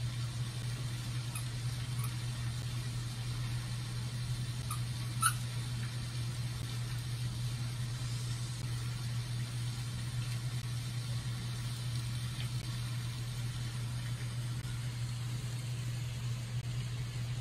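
A steady low machine hum that does not change, with a few faint clicks and one sharper click about five seconds in.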